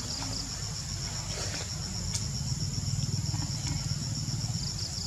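Insects trilling in a chorus: a steady, high-pitched, rapidly and evenly pulsing buzz, over a constant low rumble.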